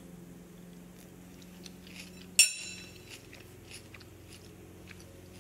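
A person chewing a mouthful of tuna salad, with small wet mouth clicks and one sharper click about two and a half seconds in.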